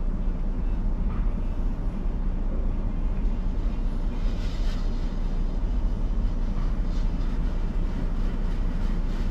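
Car wash spray arches drenching the car with bug-prep solution, heard from inside the cabin as a steady low rumble of water drumming on the glass and roof, with a light hiss that swells a little now and then.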